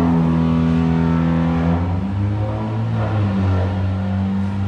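Honda Civic FK 1.5-litre turbocharged four-cylinder engine running steadily under load on a chassis dynamometer at around 3,000 rpm during a power run on a newly set-up turbo.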